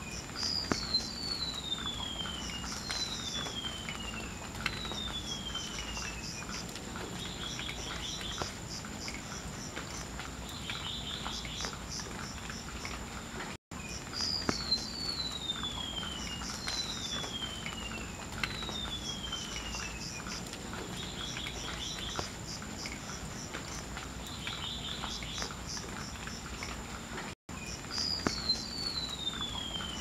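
Golden-bellied gerygone singing: a run of four thin, high whistles, each sliding down in pitch, with the same song phrase coming again about every 14 seconds.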